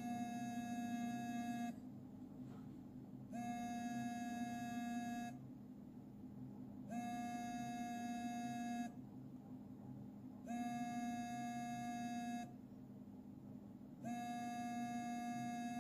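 Boat Xtend Sport smartwatch's vibration motor buzzing against the cardboard box it rests on, five times in a row. Each buzz is a faint, steady-pitched drone of about two seconds with a pause of about a second and a half between them: the Find My Watch alert triggered from the phone app.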